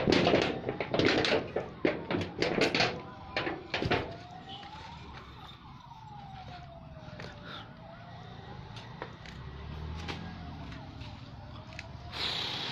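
Emergency vehicle siren wailing, its pitch rising and falling slowly about every three seconds. A run of loud knocks and clatter fills the first few seconds.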